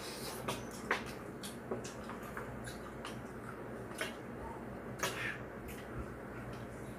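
Eating sounds: a scattering of short clicks and smacks from chewing and from chopsticks and a metal spoon tapping against bowls, the sharpest about a second in and again about five seconds in.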